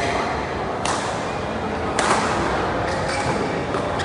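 Badminton rackets striking the shuttlecock in a rally: sharp smacks, the first about a second in and the loudest about two seconds in, with lighter hits or shoe sounds after it, over a steady murmur of voices.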